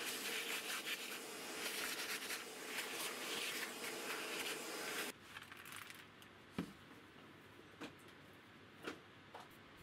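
Vacuum cleaner running with a brush nozzle, sucking dust and debris off a bass guitar body: a steady rushing noise with scratchy brushing over it. It cuts off suddenly about five seconds in, followed by a few faint clicks.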